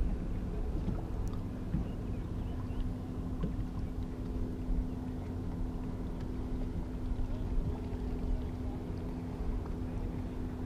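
A motorboat engine running steadily, a single even hum that holds throughout over a low rumble.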